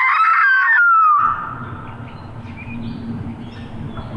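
Mouth-blown coyote howler call used as a locator to make roosted turkey gobblers gobble: wavering yips that end in one falling howl about a second in.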